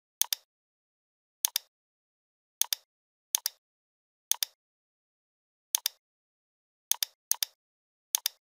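Computer mouse clicks, nine of them at uneven intervals, each heard as a quick pair of ticks, with dead silence between.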